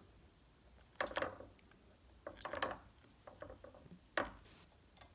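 A handful of plastic clicks and light knocks from buttons on a digital torque wrench. The first two presses each give a short high beep, as the display is switched between units.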